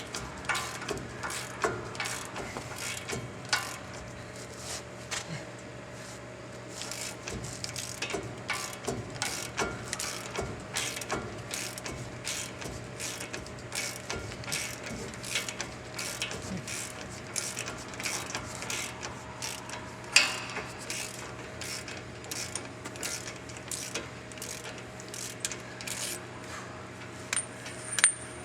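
Hand ratchet clicking steadily as a loosened lower ball joint nut is backed off its stud, one short stroke after another, with one louder clack about twenty seconds in.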